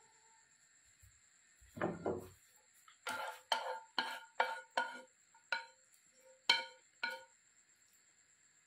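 Cooking utensil striking and scraping a frying pan of stir-fried greens: a duller scrape about two seconds in, then a quick run of about nine sharp, ringing clinks over some four seconds.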